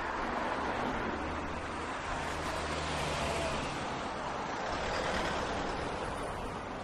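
City street ambience: a steady wash of traffic noise, with the low hum of a passing vehicle swelling and fading in the middle.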